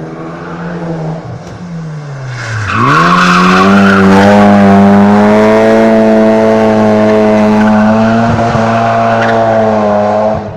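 Supercharged four-cylinder engine of a drift car held at high revs while the tyres squeal and skid. The engine note sinks, dips about three seconds in, then climbs quickly and holds high and steady. The sound stops abruptly near the end.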